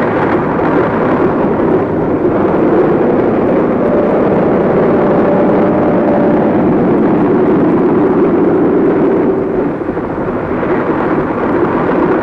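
A loud, steady engine drone with faint humming tones that waver slightly in pitch.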